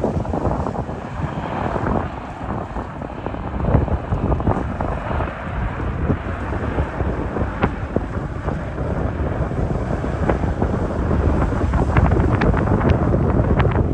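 Strong wind buffeting the microphone in uneven gusts, a heavy low rumble with scattered crackles, growing louder near the end.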